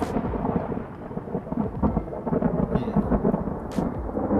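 Thunderstorm thunder: a long, continuous rumble that rises and falls in loudness.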